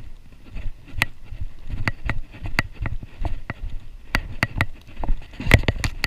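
Footsteps on a hard pier deck, sharp irregular steps about two a second, over a low rumble of wind on the microphone.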